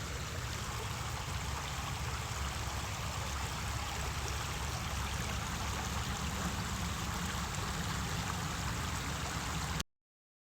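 Steady rushing of flowing stream water, with a low rumble under it; it cuts off suddenly near the end.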